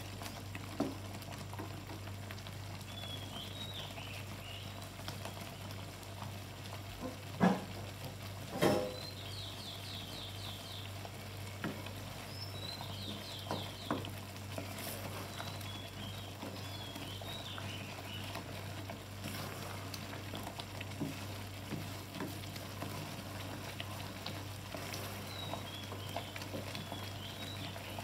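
Thick cheese sauce with macaroni sizzling and bubbling in a nonstick pan as a wooden spatula stirs it. A few sharp knocks of the spatula against the pan come through, the loudest two about seven and nine seconds in. Faint high chirps are heard now and then.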